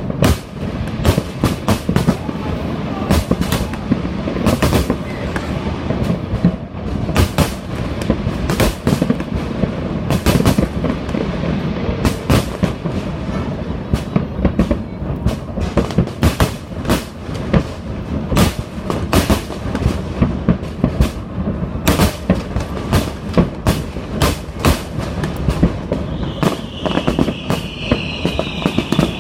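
Fireworks display: a dense, continuous barrage of booms and sharp bangs over a low rumble, with a high whistling tone coming in near the end.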